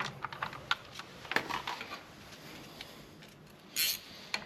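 Scattered small metallic clicks and taps of a steel nut being handled and threaded onto a stud, with a brief rasping burst near the end.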